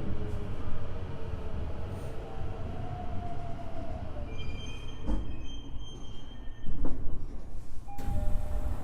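Tokyo Metro 05 series train running, heard from inside the car as it slows: the Mitsubishi IGBT inverter whine falls in pitch over the wheel rumble, a high brake or wheel squeal comes in about halfway, and there are a couple of knocks near the end.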